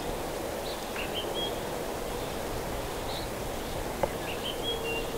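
Outdoor riverside ambience: a steady background hiss with a few faint, short bird chirps scattered through it, and a single sharp click about four seconds in.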